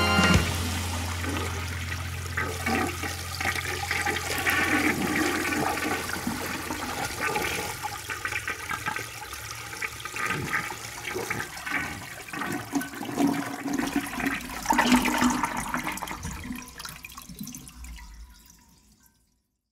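Toilet flushing: a long swirling rush of water with irregular surges that fades away near the end.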